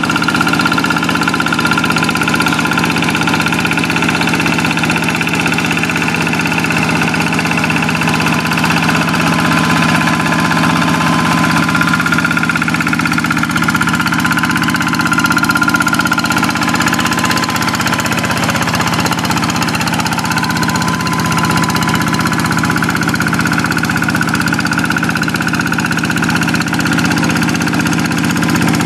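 Kubota single-cylinder diesel engine of a Quick walk-behind hand tractor running steadily under plowing load, with a faint higher whine over the engine note.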